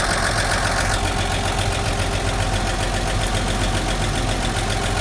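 The engine of a 1953 Chevrolet pickup idling steadily, with its generator charging.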